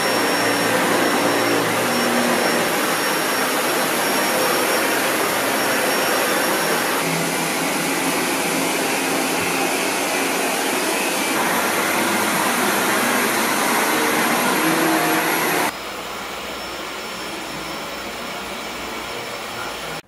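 A series of upright vacuum cleaners, including a Dyson Ball Animal 2 and a Shark Apex, each running at full power on carpet. Each gives a steady loud rush of air and motor, and the first has a thin high whine over it. The sound switches abruptly from one machine to the next a few times, and the last one is noticeably quieter.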